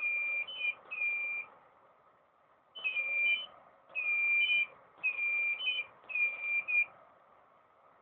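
Profoto D1 studio flash head giving its high two-tone ready beep again and again, about once a second, with a short pause after the third beep. Each beep signals that the flash has recycled after firing in a rapid burst test, and the recycling is quick.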